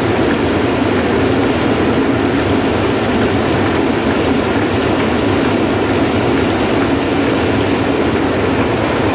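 Satake rice huller running, a loud steady mechanical noise. The owner traces its abnormal tan-tan knocking to an old pulley, which he names as the cause of the noise.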